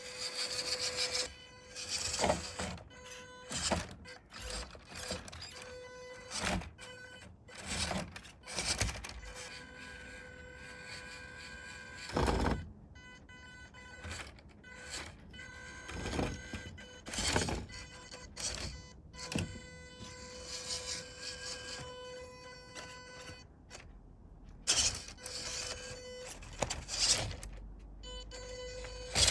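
Small electric RC toy cars driving over an obstacle course: a steady high motor and gear whine comes and goes as the throttle is worked. Frequent sharp plastic knocks and scrapes come from the wheels and bodies striking the obstacles.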